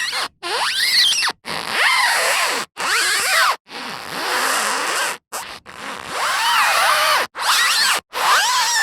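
A series of short car tyre squeals, each about a second long, with the pitch sliding up and down and brief silences between them.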